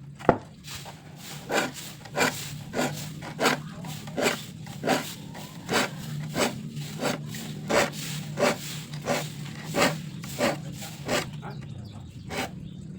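Rasping hand-tool strokes in a steady rhythm, about three every two seconds, over a faint low hum, with a sharp click just after the start.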